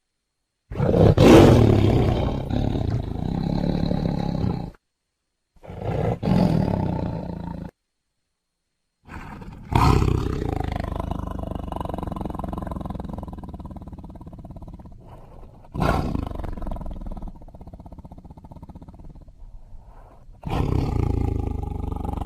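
Tiger roaring: about five calls in a row, each starting sharply and trailing off, with short dead-silent gaps between the first few.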